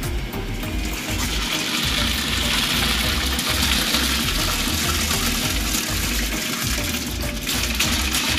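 Washed sorghum grains poured from a plastic basin into a large aluminium pot of boiling water make a steady rushing hiss of grain pouring into water. It starts about a second in and thins out near the end.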